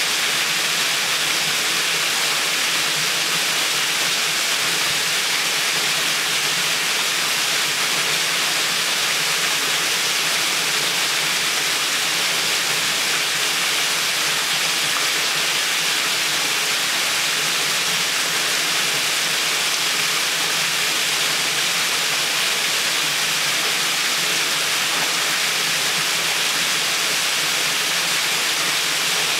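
Water rushing and splashing steadily, an even hiss that never pauses or changes.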